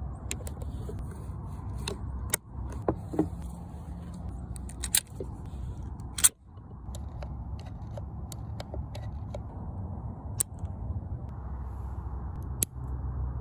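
Scattered sharp metallic clicks and small knocks from a CZ vz. 24 pistol being handled, over a steady low rumble. The sharpest click comes about six seconds in.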